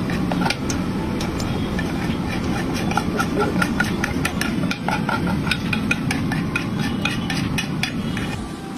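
Irregular clinking and scraping of metal against a large aluminium cooking pot as its lid is lifted and biryani is served from it, over a steady background rumble.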